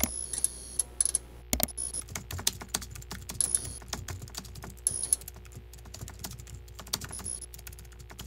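Irregular light clicks and taps over a low steady hum, with a louder knock about one and a half seconds in.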